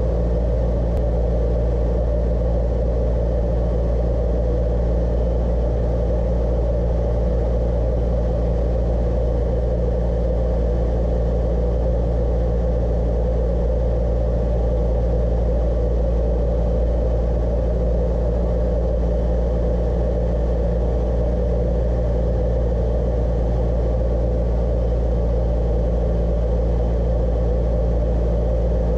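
Cessna 172's piston engine and propeller droning steadily, heard from inside the cockpit.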